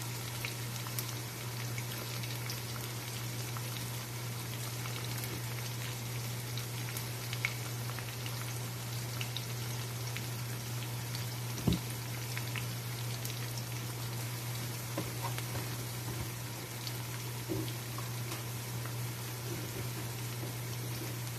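Sliced onions sizzling and crackling in hot oil in a nonstick frying pan, over a steady low hum. A single sharp knock about halfway through.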